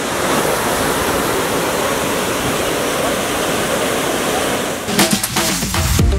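Water of the Trevi Fountain cascading over its rocks into the basin, a steady rush. About five seconds in, music with a beat comes in.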